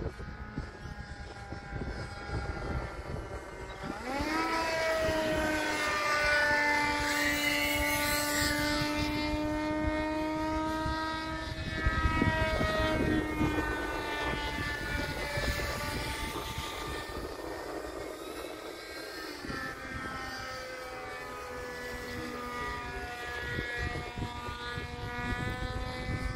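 Electric motor and three-blade propeller of a 1/3-scale RC ultralight droning in flight. The pitch rises sharply about four seconds in as the throttle opens, then drops to a lower, steady drone past the middle.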